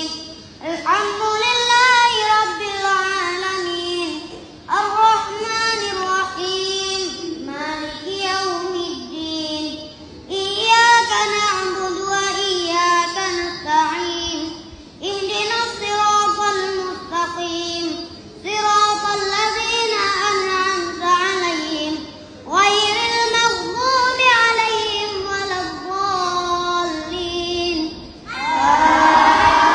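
A boy's solo melodic Quran recitation while leading prayer, picked up close on a clip-on microphone: long sung phrases of a few seconds each, with short breaths between. Near the end, many voices of the congregation come in together.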